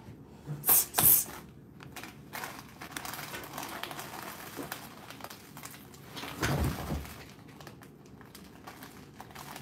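Plastic takeout bag crinkling and rustling, with two short, sharp noises about a second in. About six and a half seconds in, a man lets out a low burp.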